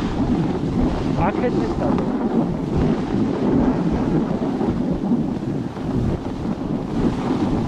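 Wind buffeting a helmet or selfie-stick action camera's microphone while snowboarding downhill: a steady, loud, low rumble.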